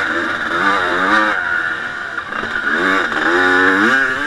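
1989 Honda CR250's 250 cc two-stroke single-cylinder engine revving hard under race load, its pitch climbing twice with a short dip about two seconds in, heard close up from a camera on the bike.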